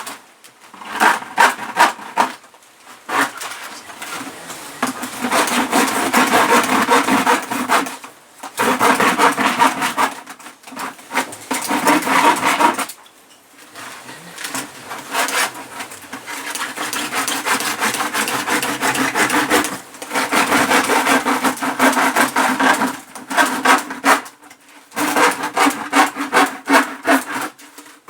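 A knife sawing through the wall of a 20-litre plastic water bottle: a rasping back-and-forth scrape in long runs, broken by several short pauses.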